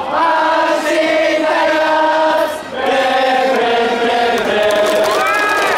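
A large stadium crowd of baseball fans singing a cheer song in unison, in long held notes, with a brief break about two and a half seconds in.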